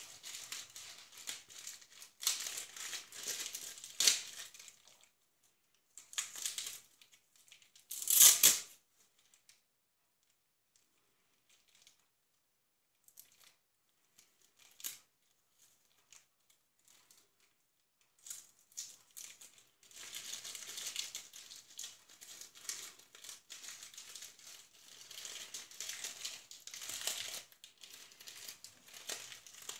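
Clear plastic packaging bags crinkling as hands handle and open them, with one short, loud tearing sound about eight seconds in. A quiet stretch with a few small clicks in the middle, then steady crinkling again.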